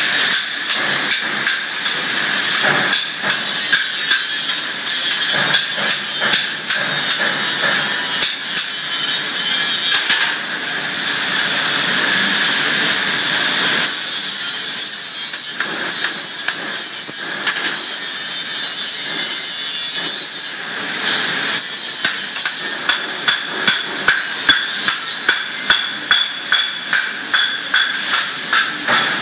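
Metalworking clatter from slotted sheet-steel discs being worked by hand: repeated metallic knocks and taps over steady shop noise. Near the end comes a quick regular run of strikes, about two or three a second.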